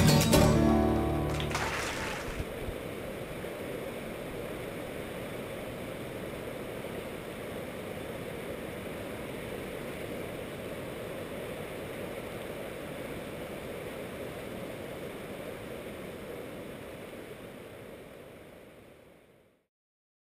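Steady rushing of river rapids, after music ends in the first two seconds; the water sound fades out near the end.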